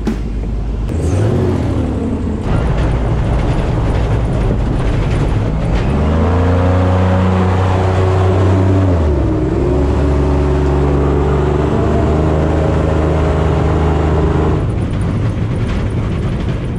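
Airboat engine and propeller heard from inside the enclosed cab, with a steady rushing noise under it. The engine revs up about six seconds in, dips briefly near nine seconds, then holds a steady high note before easing off near the end.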